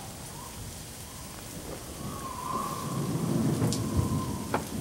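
Rain falling steadily, with a low rumble of thunder that swells about halfway through and two sharp cracks near the end.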